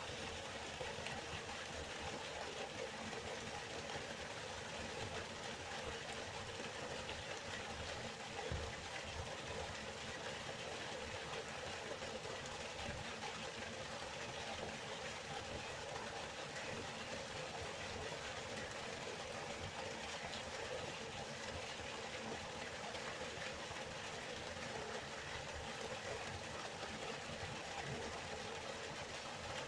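River water flowing steadily, an even rushing noise, with one brief louder knock about eight seconds in.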